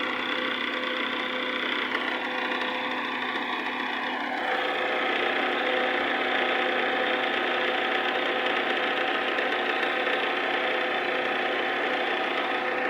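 Honda Civic engine running steadily, with a stack of steady humming tones; about four and a half seconds in it grows louder and fuller. The owner presents this as the car's cranky noise whenever reverse or drive is engaged.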